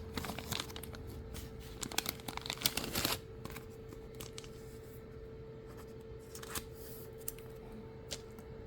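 Trading cards being handled: a quick run of rustles and clicks as cards are flicked and slid against each other for about three seconds, then only a few soft clicks over a steady faint hum.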